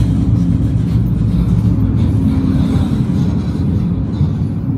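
Tram running along its track, heard from inside the car: a steady low rumble of wheels and running gear with a faint even hum.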